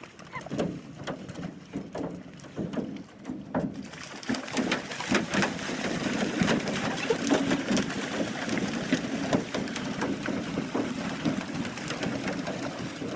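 Silver carp leaping out of a river in large numbers, splashing back into the water and knocking against an aluminium canoe. It is a dense, uneven clatter of splashes and thuds that grows louder and busier about four seconds in, over a low steady hum.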